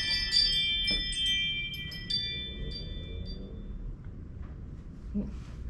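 Wind chime ringing: several overlapping high notes struck and left to ring, fading away a few seconds in.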